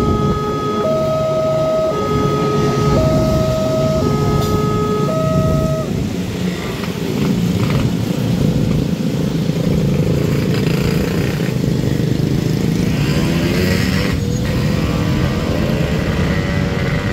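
Railway level-crossing warning alarm sounding two alternating tones, changing about once a second over a steady higher tone, with a passing train's rumble underneath; the alarm stops about six seconds in. After that, motorcycles and cars run across the crossing.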